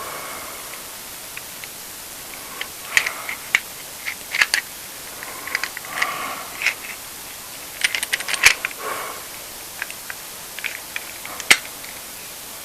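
Irregular metallic clicks, taps and short scrapes as a steel chisel is fitted and positioned in a Saker honing guide, with the sharpest knocks about eight and a half and eleven and a half seconds in.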